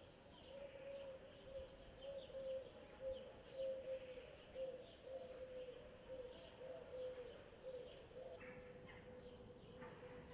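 Faint chirping of small birds, short scattered calls throughout, over a steady low tone that swells and fades.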